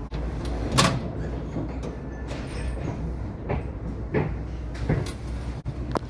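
Tram running on its rails: a steady low rumble with irregular knocks and clunks from the wheels and bodywork.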